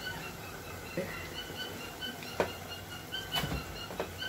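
Thick chicken gravy simmering in a pan, its bubbles popping in a run of short, high blips, with a few sharp clicks of a spatula against the pan as cream is stirred in.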